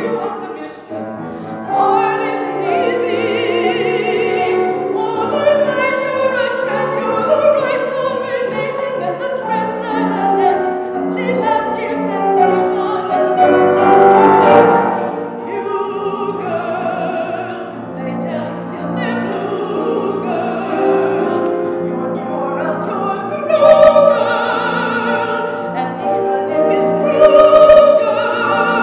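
A woman singing a Broadway show tune in a trained, operatic voice with vibrato, accompanied by grand piano. The loudest held notes come in the last few seconds.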